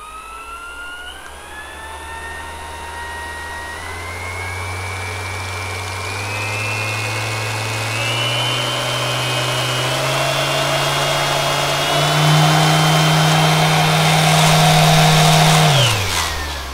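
YOKIJI KS-01-150-25 brushless random orbital sander (150 mm pad, 2.5 mm orbit) running free with no load, its motor whine climbing in several distinct steps as the speed is raised setting by setting. About 16 seconds in it is switched off and the whine falls away as the pad spins down.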